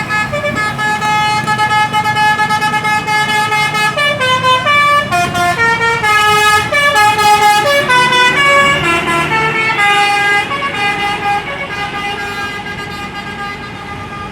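A bus's 'telolet basuri' musical horn playing a tune of held and stepping notes, over the rumble of the bus's engine. It grows fainter over the last few seconds.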